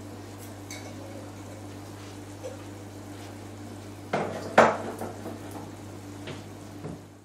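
Dishes and kitchenware clattering: two loud clanks a little after four seconds in, then a few lighter knocks, over a steady low hum.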